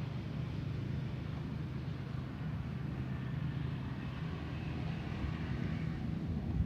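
An engine running steadily with a low, even hum, under a faint hiss.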